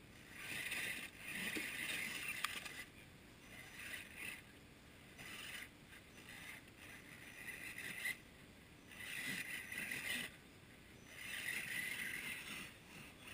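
Small electric winch motor on a radio-controlled scale crawler whirring in repeated spurts of one to two seconds, hauling the truck up a steep slope by its line.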